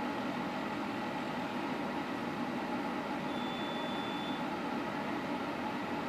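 110-volt electric quartz space heater running, with a steady fan whir and hum.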